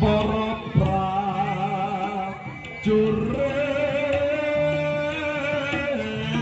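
Live East Javanese jaranan music: a gamelan-style percussion ensemble with sharp drum strokes and steady low gong-like notes under a long held, wavering melody line.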